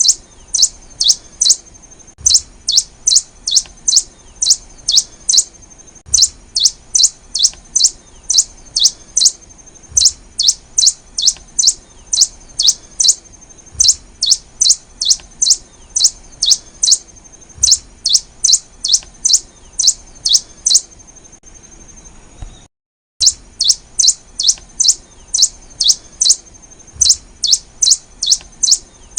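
Black-and-rufous warbling finch (Poospiza nigrorufa) singing: runs of five or six sharp, high chirps repeated every couple of seconds over a faint steady high tone. The sound cuts out completely for a moment about three quarters of the way through.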